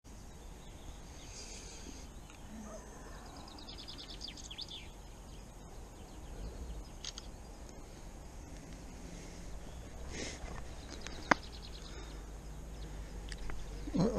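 Outdoor ambience by open water: a steady low rumble of wind on the microphone with songbirds chirping here and there. A single sharp click about eleven seconds in, and handling noises near the end.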